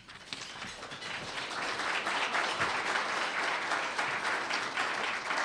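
Audience applauding, building up over the first second or two and then holding steady.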